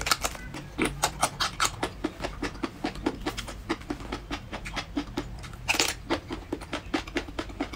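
Close-up wet mouth sounds of eating a soft, translucent piece of seafood: a run of quick sucking and chewing clicks, with one louder, longer sucking noise about six seconds in.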